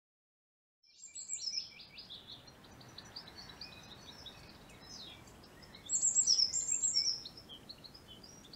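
Songbirds singing in woodland over a faint background hush, beginning after a brief silence. There are two louder spells of rapid, high song: one about a second in and one around six to seven seconds in.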